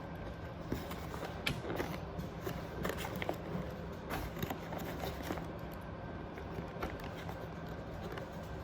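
Quiet room tone: a steady low hum with scattered small clicks and taps.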